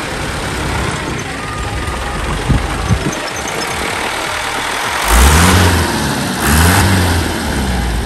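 Isuzu Elf truck's diesel engine idling, then revved hard twice, about five and six and a half seconds in, the pitch rising and falling each time. A couple of light knocks sound during the idle.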